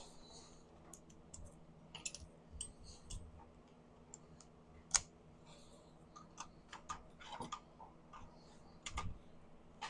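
Scattered light clicks and taps of hand tools and metal parts being handled while spark plugs are removed, irregular and quiet, with a sharper tap about halfway through and a few more near the end.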